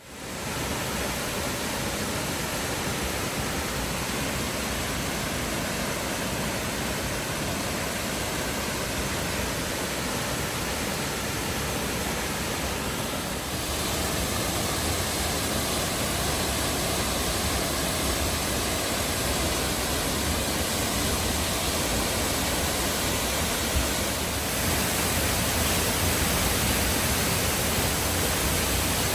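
Waterfall rushing, a steady noise of falling water that steps up slightly in loudness about halfway through and again near the end.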